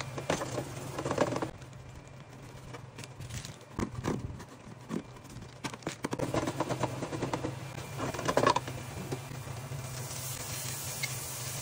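Kitchen cooking sounds: a spatula stirring and scraping mushrooms in a frying pan, then a box grater rasping in short strokes, then a steady sizzle of frying near the end, over a low steady hum.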